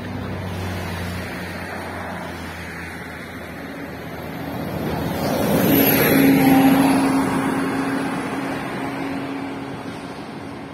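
A motor vehicle passing on the road: its engine and tyre noise swell to a peak about six seconds in and then fade away, with a steady engine hum holding through the fade.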